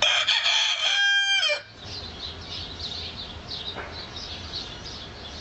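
A rooster crows once, a loud call lasting about a second and a half that bends down at the end, followed by small birds chirping.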